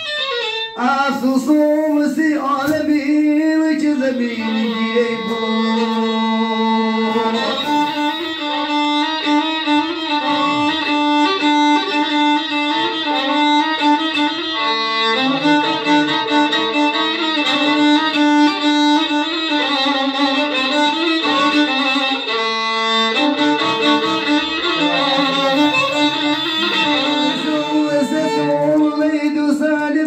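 A violin plays a continuous, ornamented melody with sliding notes, sounding as an instrumental passage.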